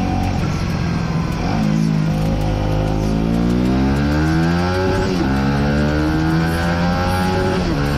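Aprilia RS4 125's single-cylinder four-stroke engine accelerating hard through the gears: the pitch climbs steadily, drops sharply at an upshift about five seconds in, climbs again, and drops at another shift near the end.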